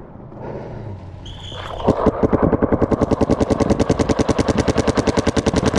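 Paintball markers firing a rapid, even stream of shots, about a dozen a second, starting about two seconds in, just after a short high beep.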